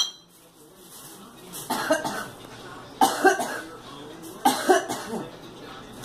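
A woman coughing in three short fits, each of two or three coughs, about two, three and four and a half seconds in.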